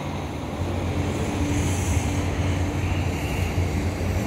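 A steady low mechanical rumble with a faint steady hum above it, growing a little louder about half a second in.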